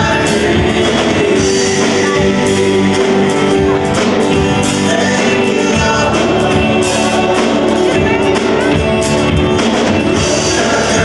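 A live worship band plays a song with voices singing, an electric bass and drums.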